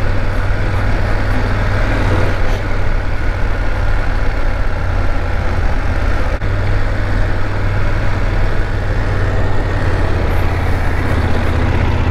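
BMW F 850 GS motorcycle's parallel-twin engine running steadily in second gear at low road speed, with wind and road noise from riding.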